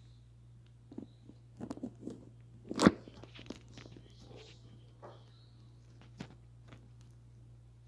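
Handling noise: scattered light clicks and rustles of hard plastic being touched and moved, with one sharp knock about three seconds in.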